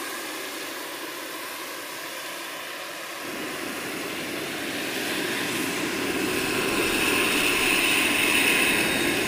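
Radio-controlled scale Hughes 500E model helicopter flying low, its rotor and motor sound growing steadily louder as it comes closer. A high whine strengthens from about six seconds in.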